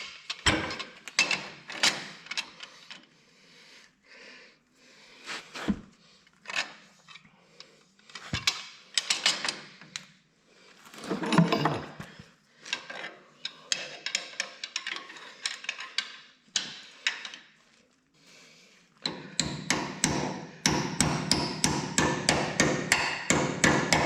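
Hammer blows on metal parts of a tractor, knocking a stuck part loose: scattered strikes and knocks, then a fast run of about five or six taps a second near the end.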